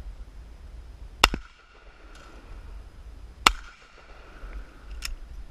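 A shotgun fired twice, about two seconds apart, each a sharp, loud blast. A fainter sharp click follows near the end.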